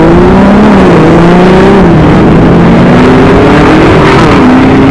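SUV engines accelerating hard down a drag strip, revving up through the gears: the pitch climbs, drops back at each upshift and climbs again, several times.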